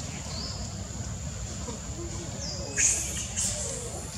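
Forest ambience: several short rising bird chirps, the loudest about three seconds in, over a steady high tone and a low rumble.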